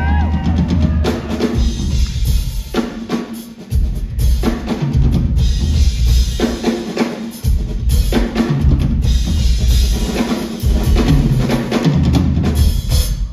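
Drum kit played solo: heavy bass drum and snare strokes with rimshots, under a wash of cymbals, in dense, fast, shifting patterns.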